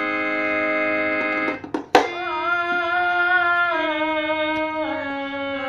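Instrumental music: a keyboard instrument with an organ-like sound plays long sustained chords and held notes. There is a single sharp percussive hit about two seconds in.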